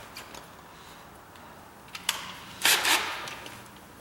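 Small hard tools being handled: a sharp click about two seconds in, then a louder short clatter, as a tiny drill bit is picked out for a starter hole.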